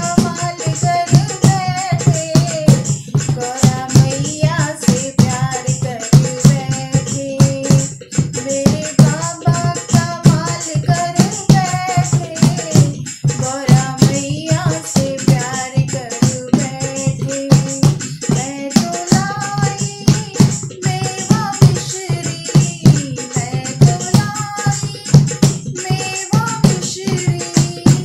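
A woman singing a Hindi devotional bhajan to Shiva, with a steady beat of sharp percussion strikes behind her voice.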